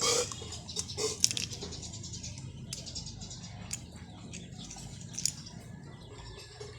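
A person eating close to the microphone: chewing and slurping mouth sounds with scattered sharp clicks, over a steady low hum.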